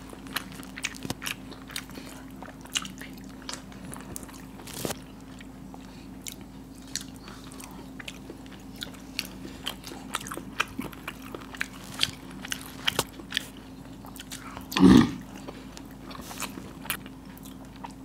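Close-miked eating sounds: hard-boiled eggs squished by hand in spicy masala gravy and chewed, many small wet clicks and smacks. A short voice sound near the end.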